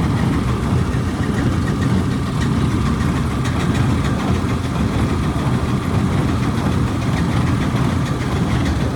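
Fendt tractor pulling a Krone Big Pack 890 large square baler in the field, the tractor engine and the baler's machinery running together as a steady, loud drone.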